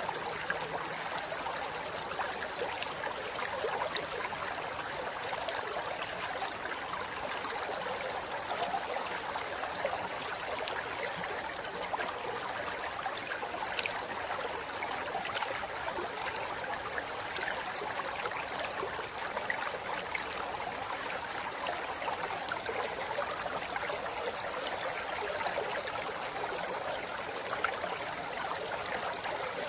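River water flowing steadily over rocks, a continuous rushing and babbling with small splashes flickering through it.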